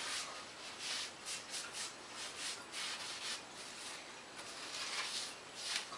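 Tissue rubbed back and forth over a foam model-aircraft wing in irregular wiping strokes, about two a second, wiping leftover CA glue accelerator (kicker) off the surface.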